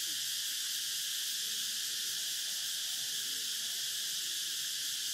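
Steady, even hiss with no change in level, and faint voices in the background.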